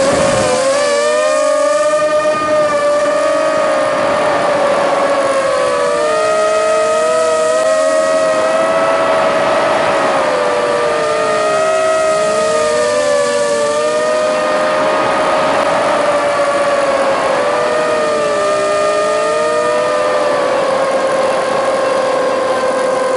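Motor and propeller whine of a radio-controlled aircraft, heard through its onboard camera: a steady whine whose pitch dips and recovers several times as the throttle changes, over a constant rush of air.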